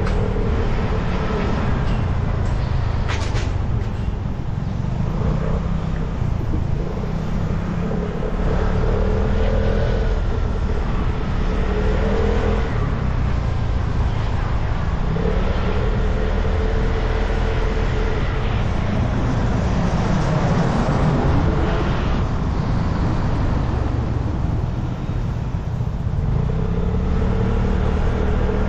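Vespa scooter engine running on the road, its pitch rising and falling again and again with the throttle, over a steady rush of road and traffic noise.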